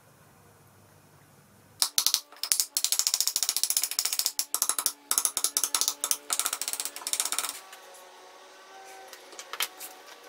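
A small hammer tapping rapidly on a metal punch against the plane body, a long run of quick sharp taps with a ringing tone under them. It starts about two seconds in and stops about five seconds later. A few scattered clicks follow near the end.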